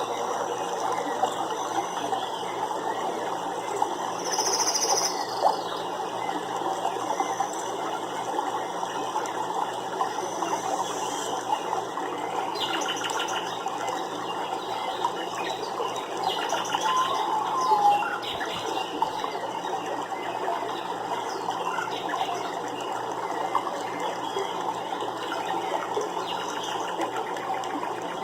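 Nature ambience of steady running water, with a few short bird chirps over it, a high one about four seconds in.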